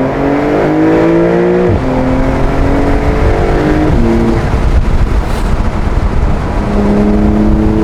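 Porsche 911 Carrera (992.2) twin-turbo flat-six accelerating, its note rising and then dropping sharply at gear changes about two seconds in and again about four seconds in. After that comes a stretch of rougher road and engine noise, then a steady engine note that falls away near the end.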